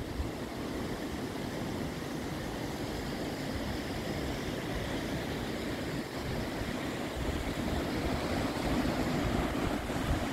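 Steady rush of wind and sea surf breaking against the foot of the cliffs, with no engine or voice standing out.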